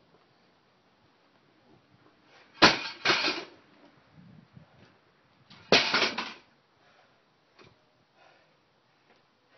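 Loaded barbell dropped onto a concrete driveway twice, about three seconds apart: each time a sharp clang as the plates hit, then a short rattle.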